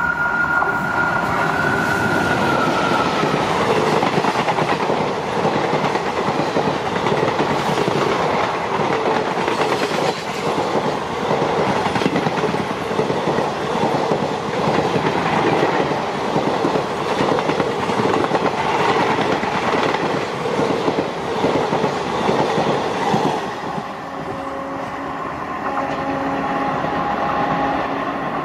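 A WAP4 electric locomotive's horn holds a steady note that ends about two seconds in, as the locomotive and its passenger coaches pass close by with loud, rhythmic wheel clatter over the rail joints. About five seconds before the end the clatter drops away as the last coach goes past, leaving a quieter sound of the receding train.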